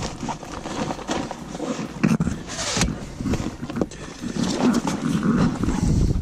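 Close handling noise: a canvas backpack and gear being rummaged through and lifted, fabric rustling and bumping with irregular knocks, with wind buffeting the microphone.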